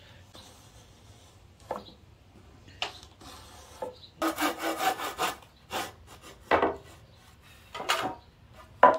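Two-by-four lumber being handled: boards scraping and rubbing wood on wood, with a quick run of scraping strokes about four seconds in and several knocks as boards are set down, the loudest just before the end.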